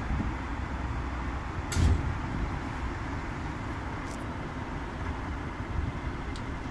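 Commercial tumble dryer running on high heat: a steady rumble of the turning drum and blower, with towels and dressing gowns tumbling inside. A thump comes about two seconds in.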